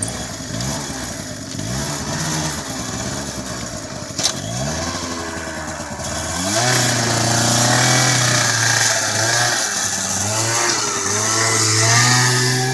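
Yamaha Vino 50 scooter's small single-cylinder engine running just after it starts, blipped a few times with rising revs while standing. About six seconds in it pulls away under throttle, and it passes close by near the end.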